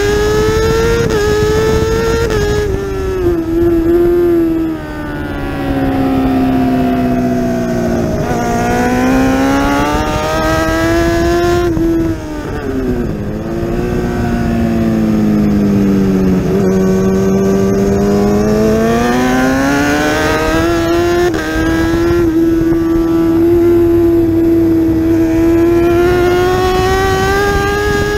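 Kawasaki ZX-10R inline-four engine at full race effort, heard onboard with wind rush: the revs climb on the throttle, drop away under braking and downshifts, then climb again.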